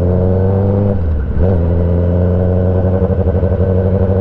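2021 Kawasaki ZX-10R's inline-four engine accelerating hard. The revs climb in first gear, break off about a second in as it upshifts to second, then climb again.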